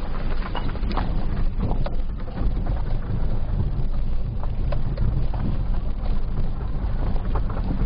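Car driving down an unpaved dirt road, heard from inside the cabin: a steady low rumble of the engine and tyres, with scattered knocks and rattles from the bumpy surface.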